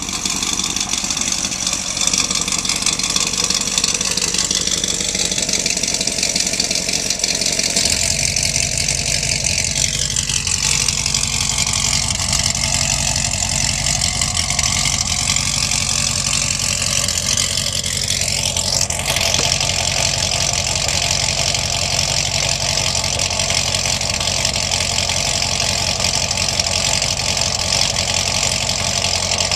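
2009 Corvette C6's 6.2-litre LS3 V8 idling steadily and loud through LG Motorsports long-tube headers with the X-pipe deleted into the factory cat-back exhaust. The low end grows fuller about eight seconds in.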